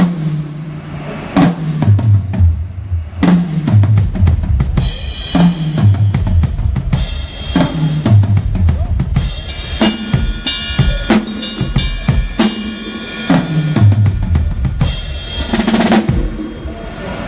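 Drum kit soundcheck: the drummer plays repeated fills down the toms from high to low, with snare, bass drum and cymbal crashes, ending on a crash near the end.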